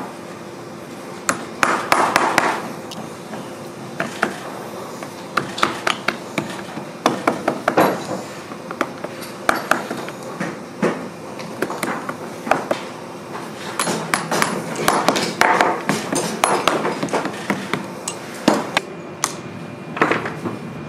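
Shoemaker's hammer tapping tacks through a leather boot upper into the insole while it is held stretched over the last with lasting pliers. The taps come in short, quick runs with pauses between.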